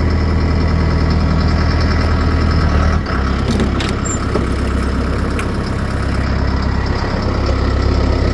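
An engine running steadily at idle. Its note drops and changes about three seconds in, and a few sharp clicks follow.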